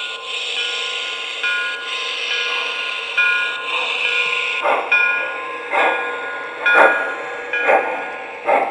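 MTH Blue Comet model steam train rolling past close by: a steady hiss with several thin high tones running through it. From about halfway, sharp clacks come roughly once a second and a little faster toward the end as the tender's and cars' wheels pass the spot.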